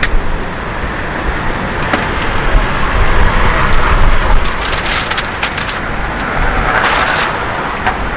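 Strong wind buffeting the microphone: a loud, gusting low rumble under a steady hiss. From about five seconds in, a run of sharp clicks and rustles rises above it.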